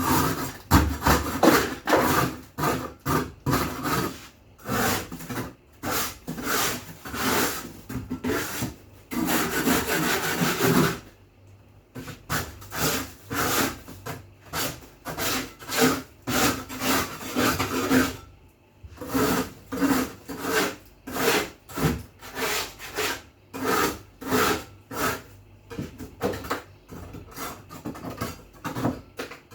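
Rhythmic back-and-forth scrubbing strokes on a fridge or freezer surface, about two a second, with one longer unbroken scrub about nine seconds in and two short pauses.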